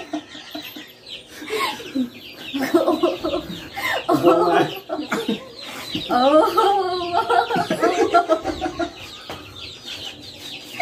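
Several people laughing hard together, in repeated bursts.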